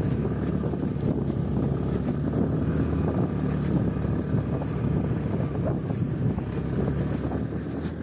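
Motorbike engine running steadily while riding a rough dirt track, with wind noise on the microphone.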